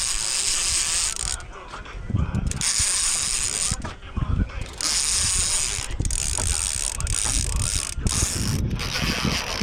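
Fishing reel clicking and ratcheting in stretches of a second or two, with short breaks between them, while a striped bass is being played from a kayak.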